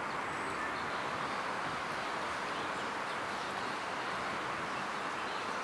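Steady outdoor background noise, an even hiss at a constant level, with a faint high chirp about half a second in.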